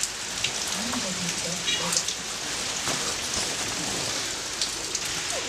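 Steady rain pattering, with many fine drop clicks. About a second and a half in, a single short electronic carp bite-alarm beep sounds, the first sign of a take on the rods.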